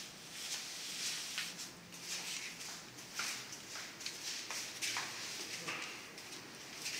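Faint footsteps and soft shuffling: irregular short scuffs, roughly one every half second to second.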